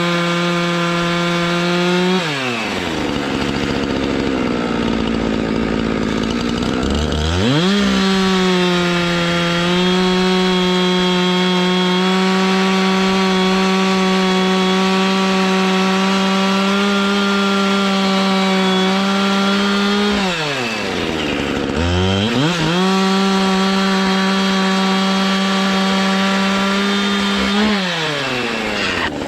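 Chainsaw in a chainsaw mill running at full throttle as it rips a log lengthwise into boards. It eases off to idle about two seconds in and revs back up a few seconds later, dips again about twenty seconds in, and winds down near the end.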